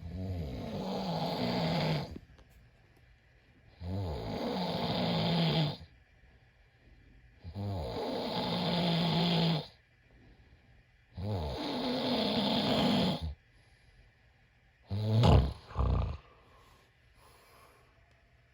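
A man snoring: four long snores of about two seconds each, coming about every four seconds. Then, about fifteen seconds in, two short, louder snores follow close together.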